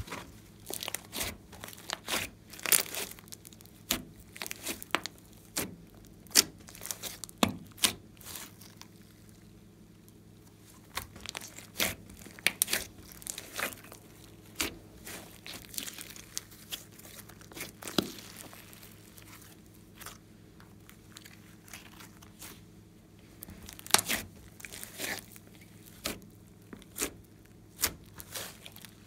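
Glossy slime being kneaded and pressed by hand, giving irregular sticky pops and crackles in clusters with short pauses between.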